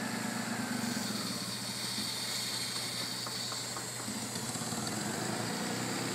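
Car engine idling steadily, with the hiss of an aerosol can of brake cleaner being sprayed from about a second in until about four seconds in.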